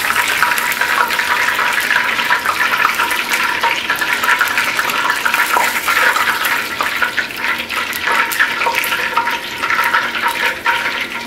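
Batter-coated fish chunks deep-frying in hot oil: a steady, dense sizzle with fine crackling.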